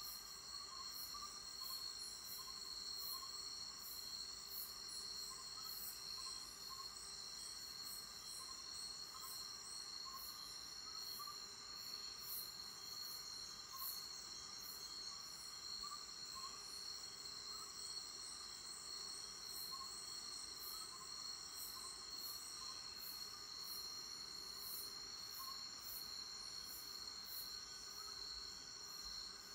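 Chorus of singing insects in the forest: several steady high trills held throughout, a higher buzz pulsing about twice a second, and soft repeated chirps lower down.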